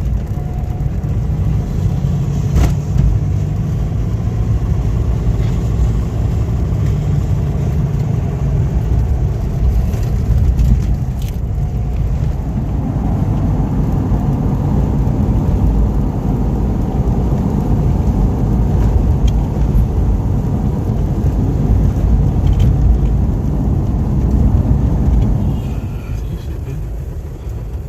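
Steady low rumble of a car being driven along a road, engine and tyre noise together, easing off a little near the end.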